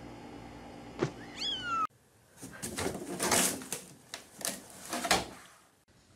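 A kitten gives a short, falling mew just after a click. Then a louder stretch of harsh, noisy cat sounds comes in several pulses over about three seconds.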